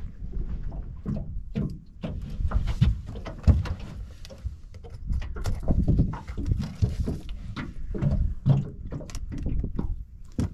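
Irregular knocks, clicks and scrapes as a live mud crab is handled on a boat's carpeted deck, its legs and claws clattering. A few heavier thumps stand out among them, over a steady low rumble.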